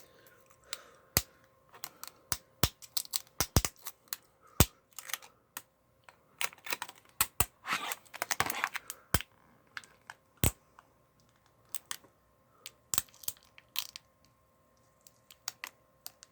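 Security sticker label being picked at and peeled off a plastic DVD case: scattered sharp clicks of the case being handled, with a longer tearing, peeling sound about seven to nine seconds in.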